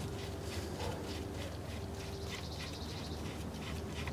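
Faint, irregular light metallic clicks of a tool working on an already-loosened bolt, over a low steady hum.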